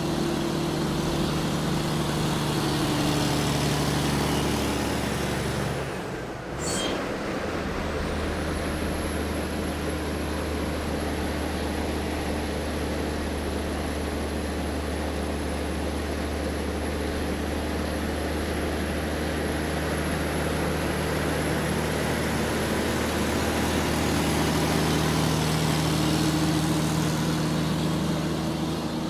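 Large truck engine running as the truck drives, a steady drone. About six or seven seconds in, the sound briefly dips and breaks with a short sharp click, then the drone picks up again at a lower pitch; it rises a little and gets louder near the end.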